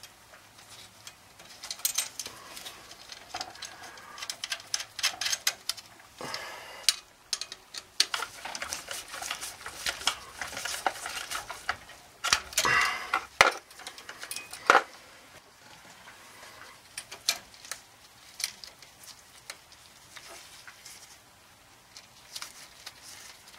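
Irregular clicks, scrapes and rustling of gloved hands working the wiring box of a circulator pump, handling wires and small metal parts. The handling is busiest in the first half, with a longer scrape a little past the middle.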